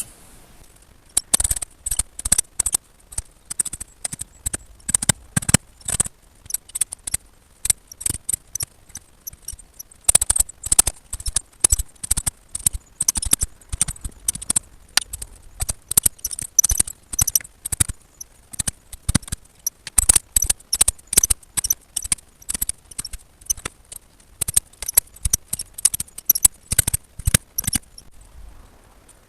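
Digging a post hole in soil with a spade: many short, sharp chops and scrapes of the blade, irregular and often in quick clusters, starting about a second in.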